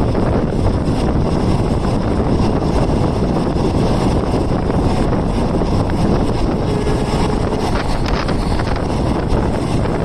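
Wind rushing in at the open window of a moving non-air-conditioned green passenger coach, buffeting the microphone, over the steady running rumble of the train on the rails.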